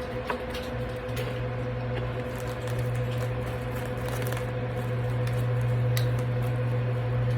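Close-up chewing and mouth sounds of someone eating a Qdoba rice bowl, with a few small clicks, over a steady low hum.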